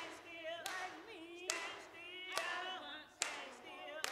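A small group of voices singing unaccompanied, with a sharp hand clap on every beat, a little more than once a second.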